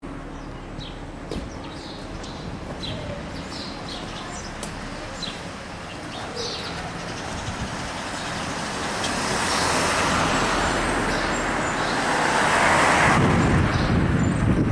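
Street traffic: cars passing along a town main street, with short high chirps above it. A vehicle passing close makes it louder in the second half.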